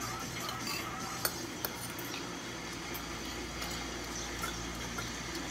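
Spoons and forks clinking and scraping on ceramic plates and bowls during a meal: a few scattered light clinks over a low steady hum.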